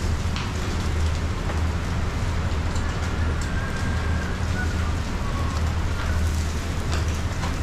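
Busy kitchen noise: an even sizzling hiss from martabaks frying on a flat griddle over a steady low hum, with a few faint clinks.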